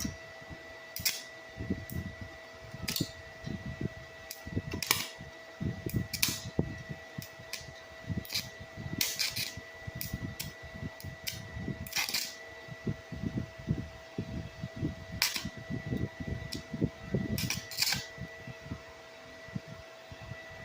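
Irregular sharp clicks and knocks, with duller low thumps between them, over a steady high-pitched hum.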